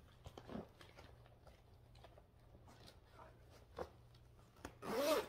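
Faint rustling and light clicks of cross-stitch fabric, pattern papers and cards being handled, with a few soft knocks. Near the end comes a short voiced sound whose pitch rises and falls.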